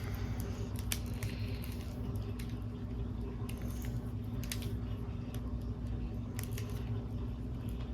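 Scattered light clicks of a small plastic 1x2x3 cuboid puzzle being turned as it is scrambled, over a steady low hum.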